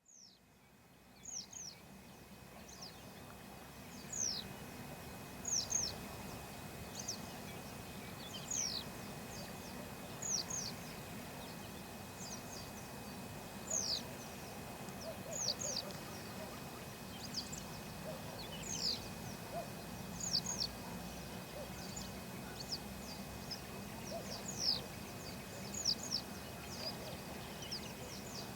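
A small bird repeatedly giving high, thin chirps that slide downward in pitch, often two in quick succession, every second or two, over a steady low background hum. The sound fades in at the start.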